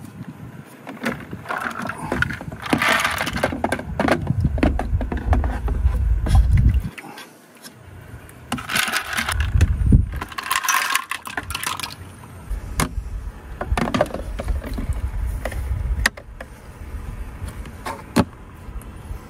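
Ice cubes clinking and rattling as they are scooped out of a portable ice maker into a metal enamel mug, with the clatter of the ice maker's plastic basket, scoop and lid being handled. The sound is a string of irregular clicks and knocks, with stretches of low rumble from handling.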